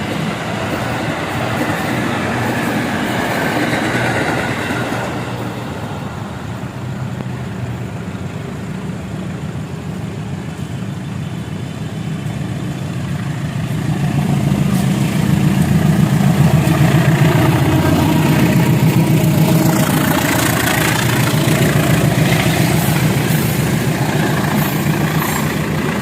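A train running past on the tracks: a steady rumble of wheels on rails with a low engine hum, growing louder about halfway through.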